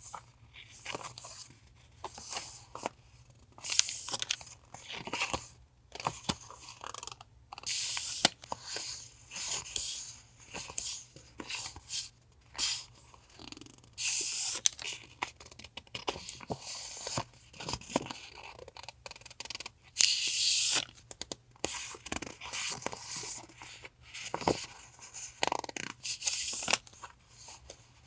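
Paper and plastic packaging rustling and crinkling as stationery items are handled and unwrapped, in irregular bursts with a few louder rustles of crinkly wrapping.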